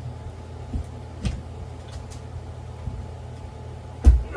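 Scattered knocks and clunks of a Onewheel tire and hub being handled while the rubber is worked off the rim, with one heavier thump near the end, over a steady low hum.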